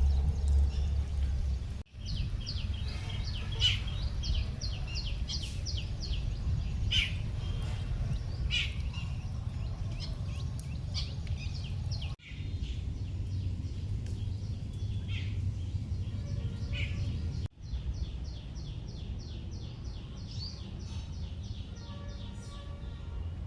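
Birds chirping: scattered high calls over a run of short, evenly repeated high notes at about five or six a second, above a steady low rumble. The sound breaks off for an instant three times.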